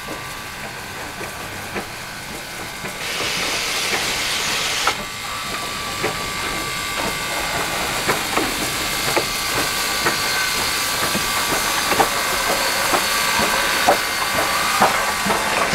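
Steam locomotive hissing steam, with a strong burst of steam hiss about three seconds in that lasts two seconds. Sharp irregular clicks and knocks grow louder and more frequent toward the end as the sound builds.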